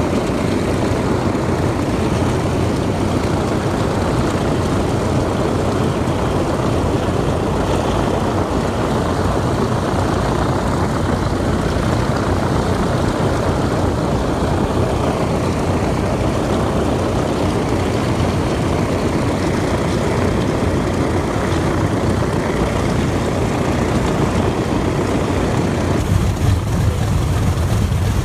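Wright R-3350 radial piston engines of B-29 Superfortress bombers running as the aircraft taxi, a steady propeller noise. About two seconds before the end the sound turns deeper and heavier, with the engines close by.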